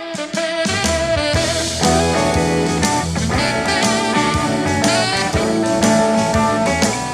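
Band music led by guitar, an instrumental passage with no singing, coming in loud and full just at the start and then running at a steady level.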